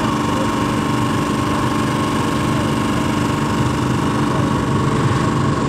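An engine running at a steady idle: an even, unchanging hum and rumble with no revving.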